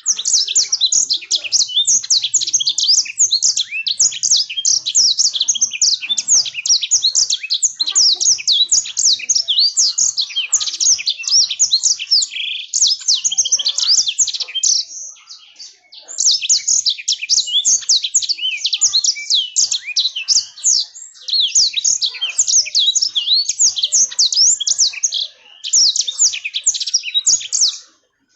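Black-throated canary (blackthroat) singing a long, fast, high twittering song of rapid chirps and trills, with two short breaks, one near the middle and one about three-quarters through.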